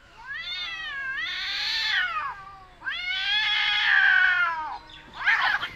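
Two domestic cats caterwauling at each other in a standoff: two long, wavering yowls that rise and fall, then a short, harsh squall near the end as the fight breaks out.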